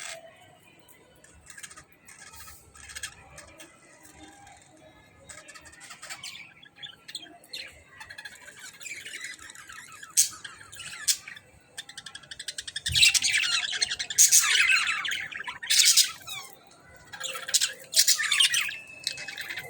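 A group of budgerigars chirping and squawking, with scattered single calls at first, then a much louder, busier stretch of overlapping chatter over the last third.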